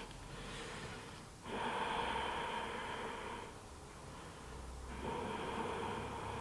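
A woman's slow, audible breathing while she holds a strap-assisted hamstring stretch: long breaths of about two seconds each, with short pauses between, the stronger ones starting about a second and a half and about five seconds in.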